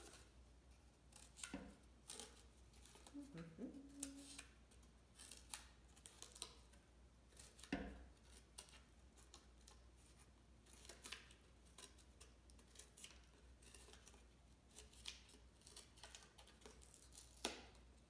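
Scissors snipping cardboard: a series of short, sharp cuts at irregular intervals as small triangular notches are chopped out of the edge of a cardboard disc.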